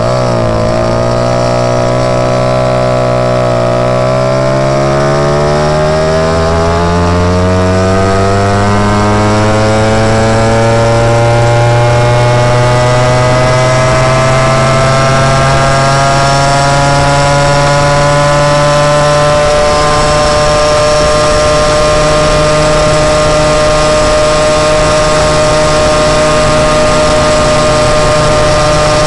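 Moped engine pulling away under way: its pitch dips briefly, then climbs steadily for about a dozen seconds as it gathers speed, and holds a steady high note for the rest.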